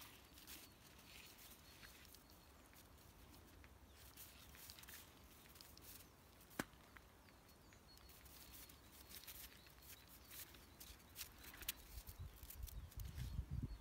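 Faint, scattered crunching of footsteps in packed snow, with one sharp click a little past halfway. A low rumbling noise builds near the end.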